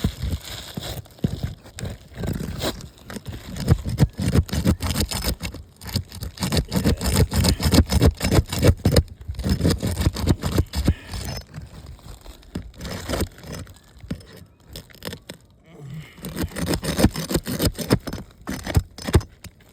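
Asphalt roof shingle being pried loose from its sealant strip: irregular crackling, scraping and tearing in spells with short lulls. The shingle is very brittle and the sealant is tearing away its mat (heavy mat transfer), a sign that it cannot be lifted without ripping.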